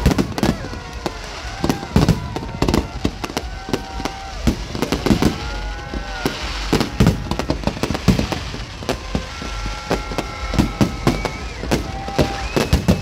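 Aerial fireworks bursting in a dense, irregular barrage: many sharp bangs, several a second at times, with booming low ends.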